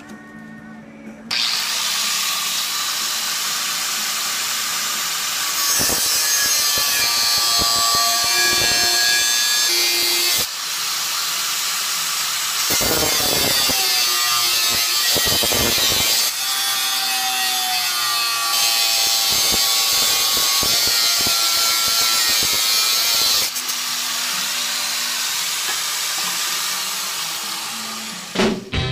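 Angle grinder with a cut-off wheel cutting through flat steel bar: a loud, steady high-pitched screaming whine that starts about a second in, changes in level as the wheel bites into the steel, dips briefly a few times, and stops just before the end.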